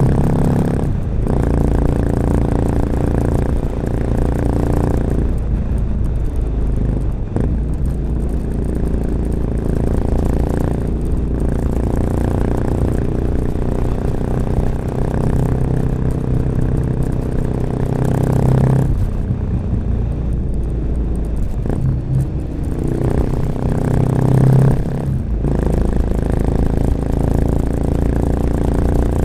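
1986 Honda XL 600 RM's single-cylinder four-stroke engine through an aftermarket XRacing exhaust with dB killer, running under way. The engine note rises and falls with the throttle, easing off several times and pulling again.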